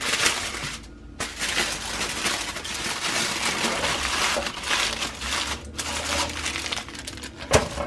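Aluminum foil crinkling and crumpling as it is folded and crimped by hand around an ear of corn, in a long run of crackles with a brief pause about a second in and one sharp crunch near the end.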